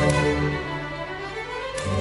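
Orchestral music with bowed strings playing held notes.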